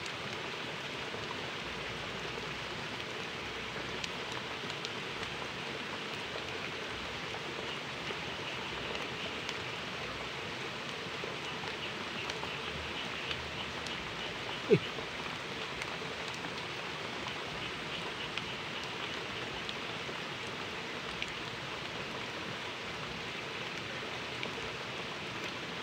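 Small rocky stream trickling and splashing steadily, with faint ticks in the water noise. A single short, sharp sound with a quickly falling pitch stands out about halfway through.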